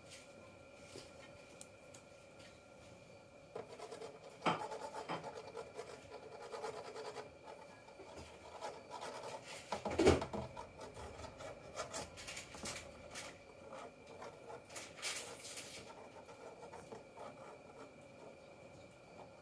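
Irregular scratching and rubbing on cardboard as a kitten moves about inside a cardboard box, with one sharper knock about ten seconds in.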